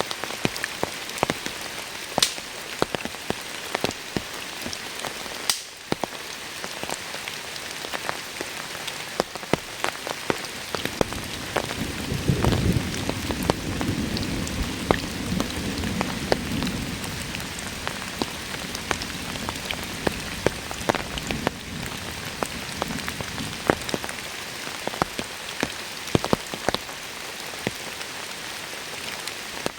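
Steady heavy rain, with many sharp individual drop hits. About twelve seconds in, a low rumble of thunder rolls in and fades away over roughly ten seconds.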